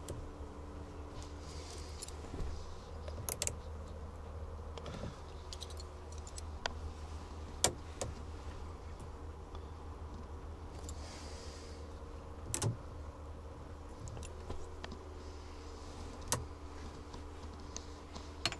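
Small metal mounting plates for magnetic window screens being handled and set in place: a scattering of sharp, separate metallic clicks, about eight in all, over a steady low hum.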